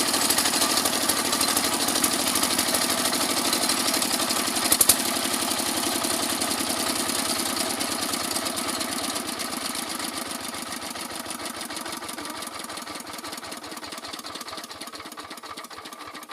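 Kirloskar single-cylinder diesel engine running with the pump impeller disconnected. About five seconds in there is a sharp click, and the engine is then shut off: its firing beats slow and fade as it runs down nearly to a stop.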